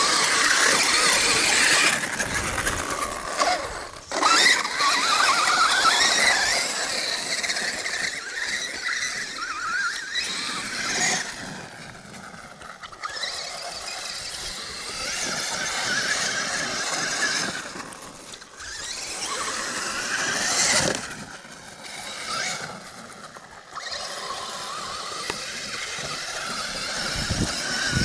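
Traxxas Summit RC truck's brushless motor and drivetrain whining as it is driven hard across sand. The high whine rises and falls with the throttle and drops away briefly several times.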